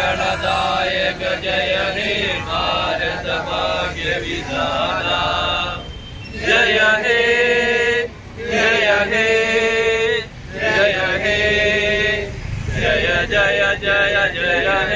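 A group of men singing together in unison, held sung lines separated by short breaks every two seconds or so.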